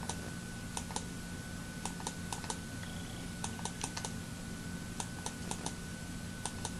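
Computer keyboard keys clicking in small irregular clusters of two to four taps, over a steady low electrical hum and a faint high whine.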